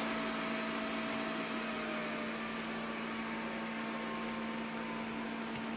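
Steady electrical hum over a low hiss, with no distinct handling or cutting sounds.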